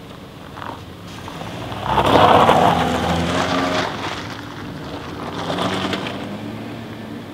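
Car engine running as the car moves over gravel, with tyre and engine noise. The sound swells loudly about two seconds in, then swells again more faintly around five and a half seconds.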